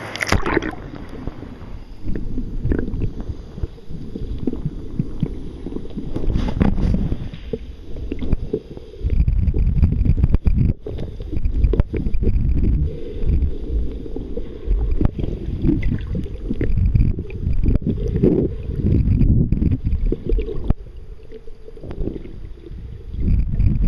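Wind buffeting the microphone: a loud, low, uneven rumble that rises and falls in gusts, with a few short knocks.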